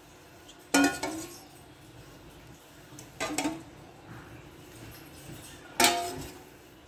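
Dishes and serving utensils clinking as food is served: three sharp clinks with a short ring, about a second in, after about three seconds, and near the end.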